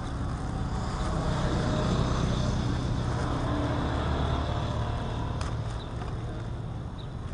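A motor vehicle's engine rumble passing by, swelling over the first few seconds and then fading, with a couple of small ticks near the end.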